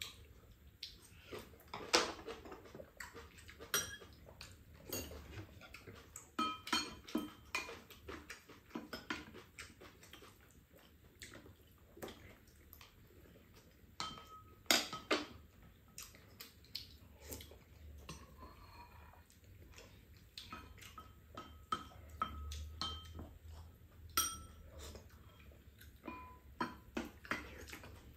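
Spoons and chopsticks clinking and scraping against ceramic bowls while eating, an irregular run of light taps and clicks, some leaving a brief ring.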